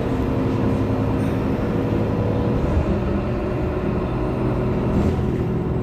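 Heuliez GX 327 city bus idling at a stop, with a steady engine hum whose pitch shifts slightly about halfway through.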